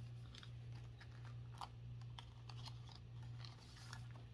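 Decal sheet and kit packaging being handled: scattered light clicks and soft crinkles of paper and plastic, over a steady low hum.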